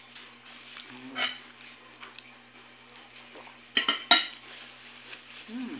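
Metal fork clinking against a glass plate while pancake is cut and eaten: two sharp, ringing clinks close together about four seconds in, with softer taps before.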